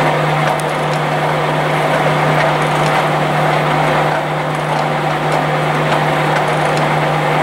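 Blanchard No. 11-16 rotary surface grinder running under power: a steady low hum with an even mechanical whir over it and a few faint clicks.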